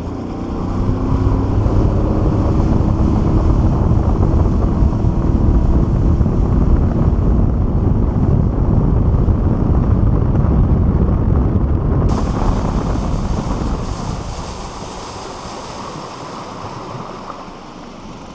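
An aluminum fishing boat's outboard motor speeding up, then running at speed, with wind buffeting the microphone and water rushing past the hull. The sound changes abruptly about two-thirds of the way through, then grows quieter as the boat slows near the shore.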